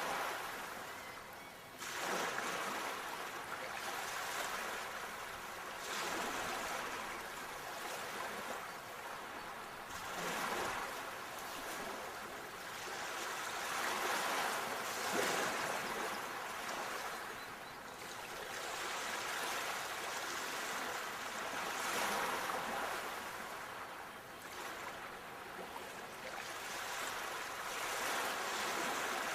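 Sea waves washing onto a shore: a hiss of surf that swells and fades again every few seconds.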